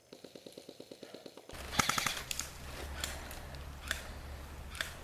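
Airsoft electric gun firing full-auto: a rapid, even rattle of about twelve shots a second for a second and a half. A few single sharp cracks follow over a background of noise.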